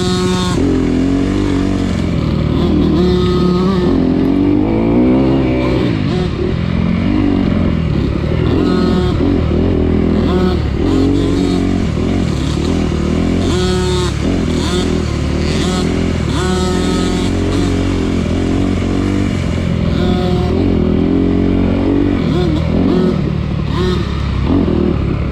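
Off-road vehicle engine running hard, revving up and down again and again through throttle and gear changes while riding a trail course.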